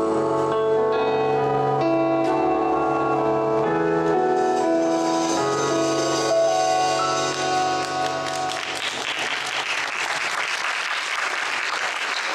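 A live band of electric guitar, drums and keyboards plays its closing held notes and chords, which stop about two-thirds of the way through. Audience applause follows to the end.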